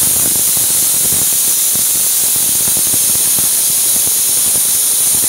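Pressure cooker whistling as it cooks dal: a loud, steady hiss of steam escaping from the valve.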